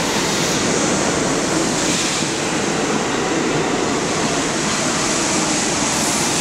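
New York City subway train moving through the station alongside the platform, a steady loud noise of steel wheels on rails.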